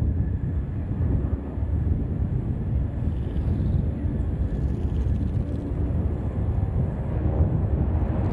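Single-engine propeller plane's piston engine throttled back as it lands and rolls out along the runway, a steady low rumble.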